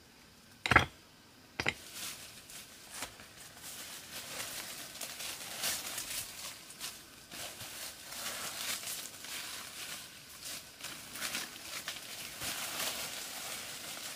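Two short sharp sounds about a second in, then continuous dry rustling and crinkling with many small crackles, growing louder over the next few seconds.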